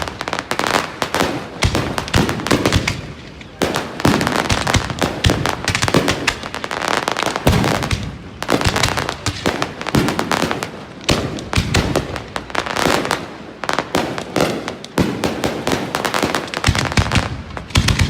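Fireworks display: a dense, continuous barrage of bangs and crackling, with a brief lull a little after three seconds in.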